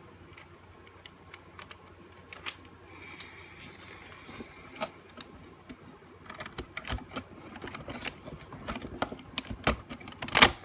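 Light plastic clicks and taps of car instrument cluster parts being handled and fitted together, getting busier after about six seconds, with one sharper, louder click near the end.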